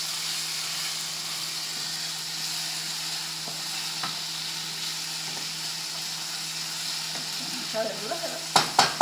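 Chopped vegetables sizzling in oil in a frying pan on a gas burner while a wooden spoon stirs them: a steady hiss. A few sharp knocks near the end.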